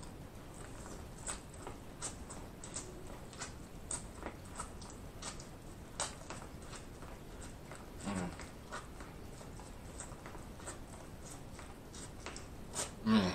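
Close-up mouth sounds of eating corn on the cob: scattered small crunches and wet clicks as kernels are bitten and chewed. A brief voice sound comes about eight seconds in, and another near the end.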